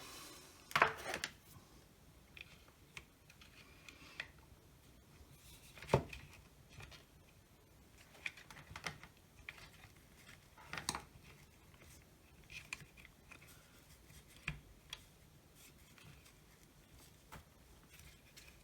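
Scattered light clicks and taps of small parts and tools being handled on a workbench, the sharpest about a second in, at six seconds and near eleven seconds.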